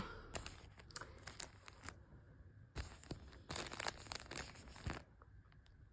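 Faint crinkling and rustling of a thin plastic packaging bag in irregular bursts as a phone case is handled and taken out of it.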